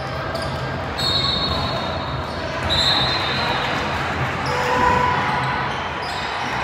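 Basketball game on a gym floor: the ball bouncing on the hardwood and sneakers squeaking, with short high squeaks about a second in and near three seconds and a lower one around five seconds.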